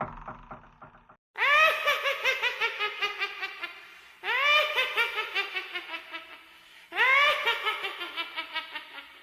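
A laugh sound effect played three times in a row, starting about a second in. Each time it is a quick run of 'ha-ha-ha' pulses that fades away over about two and a half seconds.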